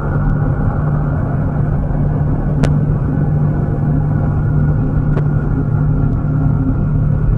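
Deep, steady rumbling drone with a constant low hum under it: a space-ambience 'planet sound' track. Two brief clicks cut through it, one about two and a half seconds in and one about five seconds in.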